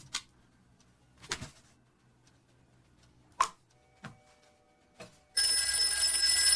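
A few soft knocks and clicks, then about five seconds in a telephone bell starts ringing loudly and keeps ringing.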